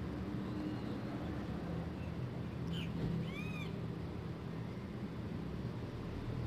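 Steady low hum, and about three seconds in one short high call that rises and falls, like an animal's cry.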